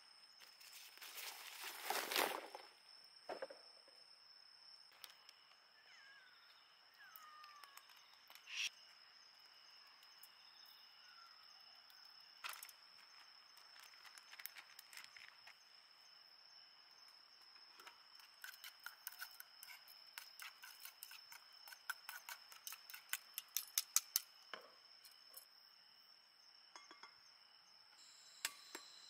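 Quiet food-preparation sounds: a plastic zip bag crinkling about two seconds in, then scattered light clicks and taps of utensils and cookware, with a quick run of sharp clicks in the second half. A steady high insect chirring runs underneath.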